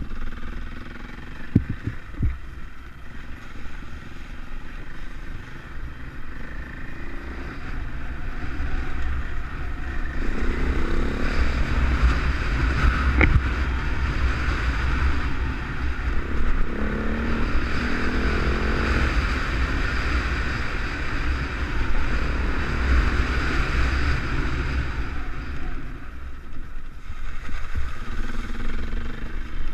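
KTM dirt bike engine running as the bike rides along a muddy track, revving up about a third of the way in and again around the middle, then easing off near the end. A heavy wind rumble on the microphone runs under it.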